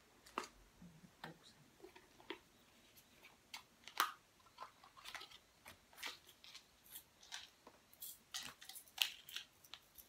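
Irregular light clicks and taps, two or three a second, with a louder click about four seconds in and another near nine seconds.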